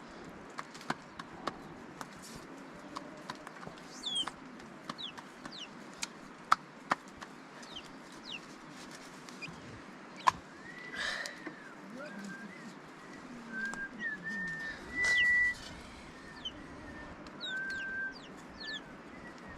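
Chickens clucking and small birds chirping, with scattered sharp clicks and knocks over a steady faint hiss.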